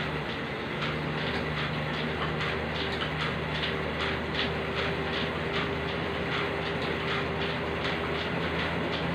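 Elliptical cross-trainer being pedalled: a steady whirring hum with rhythmic clicking, about three clicks a second, as the pedals and handles swing.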